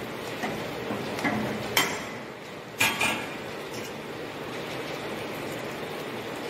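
Vegetable masher knocking and scraping in a steel kadhai as boiled vegetables are mashed for pav bhaji: a few sharp clinks over the first three seconds, the loudest about three seconds in, over a steady hiss.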